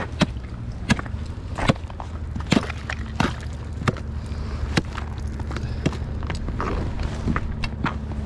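Footsteps on lake ice, about one step every three-quarters of a second, over a steady low rumble.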